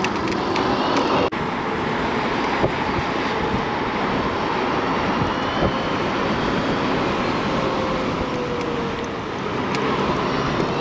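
Steady wind rushing over a chest-mounted action camera's microphone, with road and tyre noise, while riding a TurboWheel Phaeton electric scooter. Near the end a faint whine slides down in pitch and the noise eases a little as the scooter slows for a stop sign.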